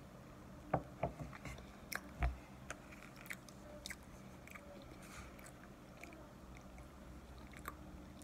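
Close-up chewing and crunching of cornstarch, a run of crisp clicks over the first four seconds, loudest about one and two seconds in, with a spoon scraping in the plastic tub of starch.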